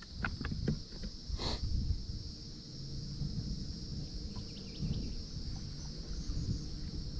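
Steady high-pitched drone of insects over a low rumble, with a few faint clicks in the first second.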